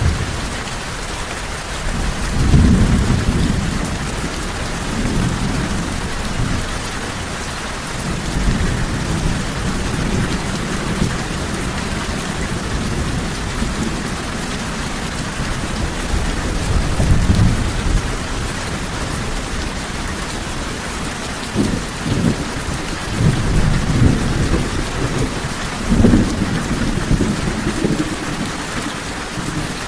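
Steady heavy rain falling on a surface, with low rolls of thunder rumbling in and out several times, the strongest about two and a half seconds in and again near the end.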